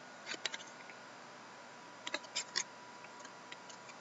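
Hockey trading cards being handled and flipped through: short, crisp clicks of card stock, in a cluster about a third of a second in and another about two seconds in, over a faint steady hiss and high hum.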